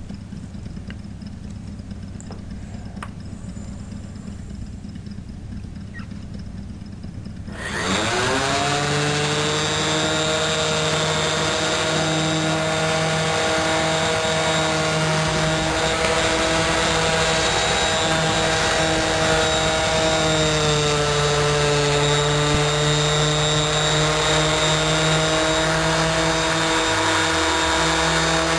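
About eight seconds in, an electric random orbital finishing sander switches on, spins up quickly and runs steadily while buffing a chrome exhaust pipe with a damp polishing pad and Blue-Job polish paste. Its pitch dips briefly a little past the middle, then recovers.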